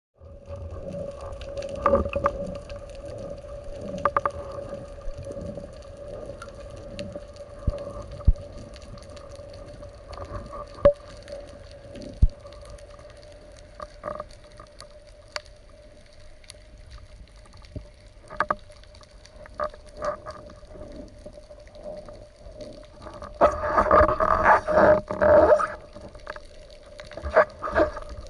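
Underwater sound during a spearfishing dive: a steady hum with many scattered sharp clicks and knocks. A cluster of louder rustling and knocks comes a few seconds before the end.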